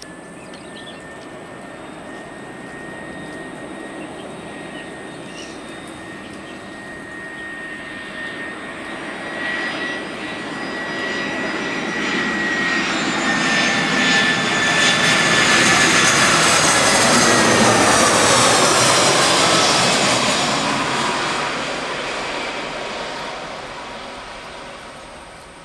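Airbus A320-214's CFM56 turbofan jet engines on landing approach: a whining jet sound that grows steadily louder, is loudest about two-thirds of the way through, then fades. Its high whine falls in pitch as the plane goes by.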